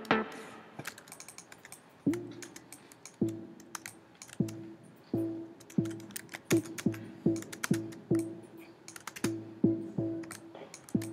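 A synth sounding short notes, all on the same pitch (A2), one at a time at an irregular pace: each note plays as it is drawn into the Ableton Live piano roll. Rapid mouse and keyboard clicks run between the notes, thickest in the first couple of seconds.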